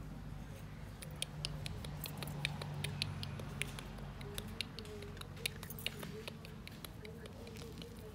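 Small, sharp, irregular clicks of metal tweezers and fingernails picking ticks out of a dog's fur, several a second, over a steady low hum.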